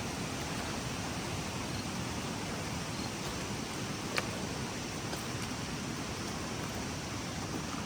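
Steady rushing of storm-swollen floodwater running through a creek, with one short sharp click about four seconds in.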